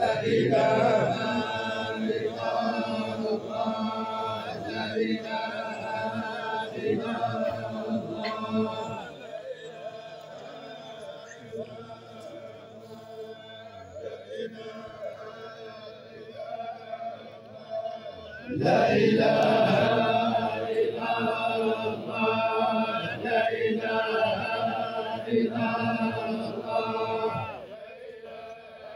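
A group of men chanting together in unison, a collective religious funeral chant honouring the deceased. It is loud at first, sinks lower after about nine seconds, swells again at about the two-thirds mark, and fades near the end.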